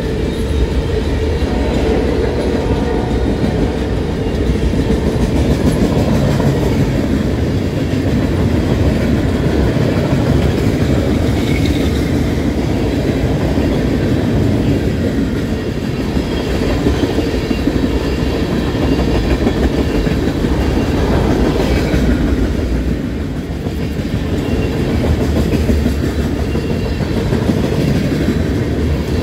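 Norfolk Southern freight train's cars rolling past close by: a steady loud rumble with the clack of wheels over the rail joints.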